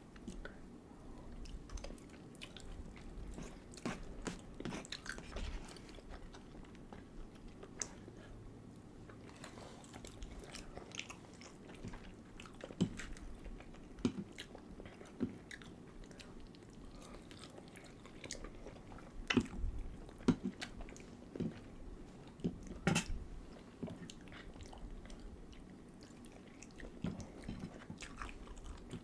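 Close-miked eating: chewing and biting into food, with scattered short wet clicks and snaps, a few sharper ones in the second half.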